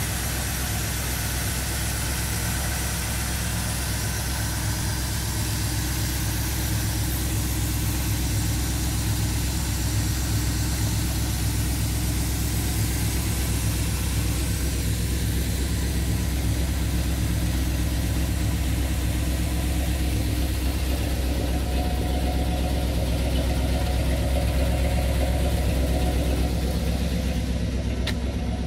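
Square-body Chevrolet C10 pickup's engine idling steadily, its exhaust running through newly fitted down pipes.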